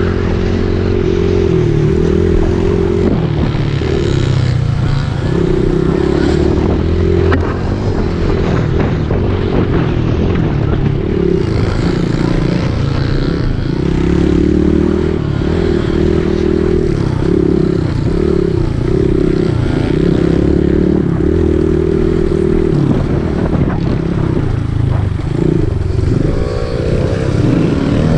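Dirt bike engine running close to the microphone as the bike rides, its note rising and falling with the throttle.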